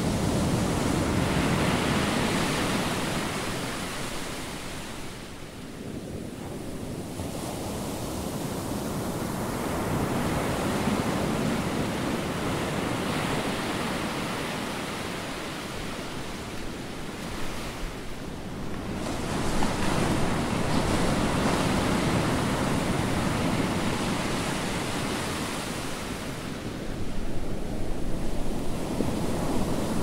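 Ocean surf: waves breaking and washing in, the rushing noise swelling and easing about every eight to ten seconds.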